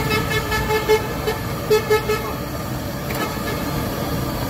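A vehicle horn tooting in a quick series of short beeps, about six in the first two seconds, over the steady sizzle of a wok of deep-frying oil.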